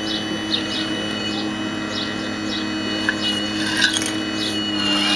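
Steady hum of a radio-controlled hydraulic excavator model's pump motor, with a high whine rising near the end, while a bird chirps repeatedly, about twice a second.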